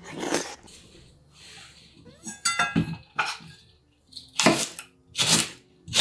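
A short crunch of food at the start, a few metallic clinks with a brief ring about halfway through, then a chef's knife chopping a green onion on an end-grain wooden cutting board: three sharp strokes less than a second apart.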